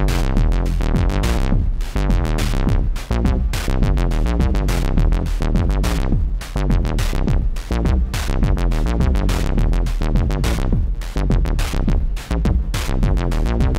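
Moog Mother-32 analog synthesizer playing a fast, funky bass sequence. Its filter is opened and closed on every note by an added Intellijel Quadrax envelope, with the resonance turned up so that each note ends in a sweep, and the knobs are turned by hand partway through. Drum hits from a Moog DFAM play along.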